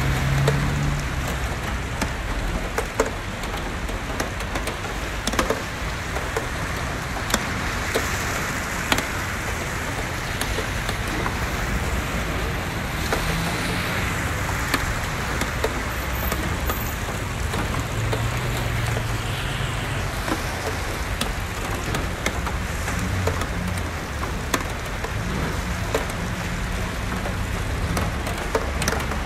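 Steady heavy rain with scattered sharp taps of drops landing close by, and at times the low drone of vehicles driving on the wet road.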